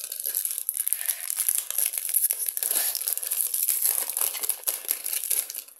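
Foil wrapper of a Pokémon TCG booster pack crinkling and tearing as it is torn open by hand, dying away near the end.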